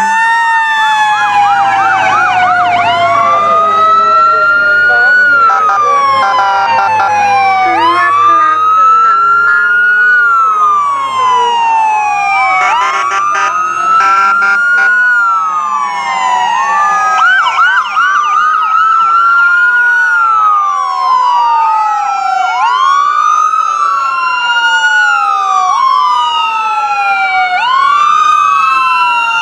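Several emergency-vehicle sirens from passing fire trucks and police vehicles sound at once, overlapping. They wail up and down about every two to three seconds, with quicker yelping stretches now and then.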